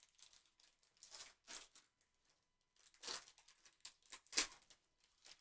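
Plastic trading-card pack wrapper crinkling and tearing as it is torn open by gloved hands, in several short rustles, the loudest about four and a half seconds in.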